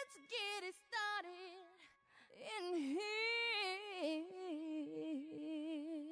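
Opening of a song: a high female voice sings wordless, wavering notes, a few short phrases and then longer held tones, with no beat under them.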